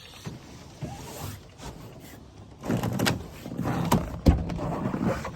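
Someone moving about and handling gear: scraping and rustling, louder in the second half, with a few sharp knocks, the loudest about four seconds in.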